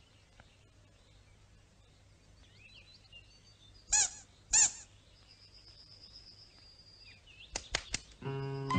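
Quiet outdoor ambience with faint, scattered birdsong chirps. A little before the middle come two short, loud, squeaky pitched calls about half a second apart. A few sharp clicks follow near the end, just as music starts.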